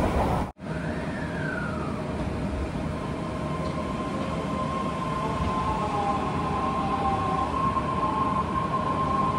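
Inside an Osaka Metro 400 series subway car as it slows into a station: steady electric whine of the inverter and traction motors over the running rumble of the car, with a short falling tone about a second in.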